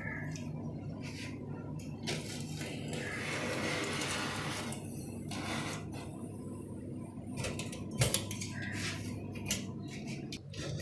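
A utility knife cutting and scraping old silicone sealant along the rim of a stainless-steel sink, with a few sharp metallic clicks and knocks, the loudest about eight seconds in.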